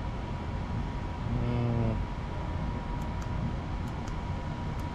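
Steady low background rumble, with a man's brief hum about a second and a half in.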